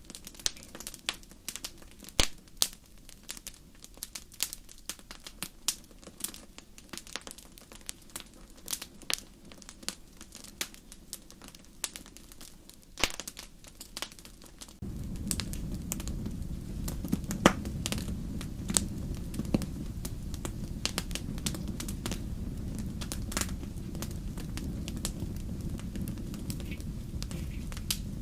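Wood fire crackling, with frequent irregular sharp pops and snaps. About halfway through, a steady low rumble of burning comes in suddenly under the crackle.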